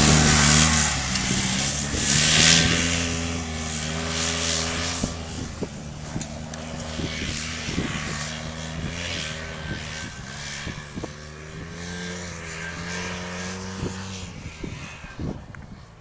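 Off-road vehicle engine running as the vehicle moves off. Its pitch drops at first, then rises and falls a little with the throttle while the sound slowly grows fainter, with scattered small clicks and knocks.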